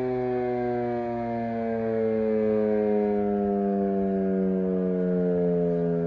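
Federal Signal Model 5 fire siren winding down after a test, its steady wail slowly falling in pitch.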